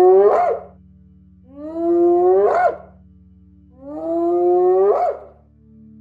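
Spotted hyena whooping: three long calls about two seconds apart, each rising in pitch and ending with a quick upward sweep.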